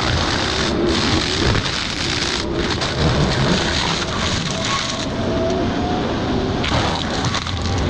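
Excavator-mounted forestry mulcher shredding brush and wood: a dense, continuous grinding noise over the low drone of the excavator's diesel engine.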